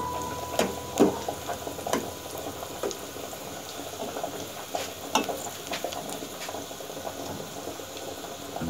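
Sliced onions sizzling in hot oil in an aluminium pot, a steady hiss full of small pops. A steel ladle stirring them clinks against the pot a few times, mostly in the first two seconds and once about five seconds in.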